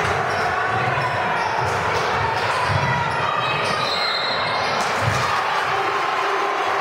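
Basketball thudding on the hardwood court a few times, over steady crowd chatter in a gymnasium.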